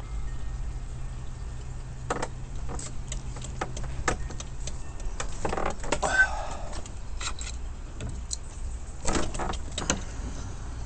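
Metal clicks and clanks of 1/2" EMT steel conduit being set into and pressed by a hand-operated arbor press. The loudest is a longer scraping clank about six seconds in, and a cluster of knocks comes near the end.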